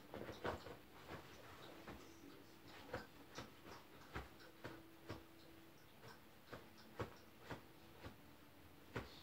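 Poodle pawing and digging at pillows and bedding: irregular short scratches and taps, a dozen or so, spaced unevenly.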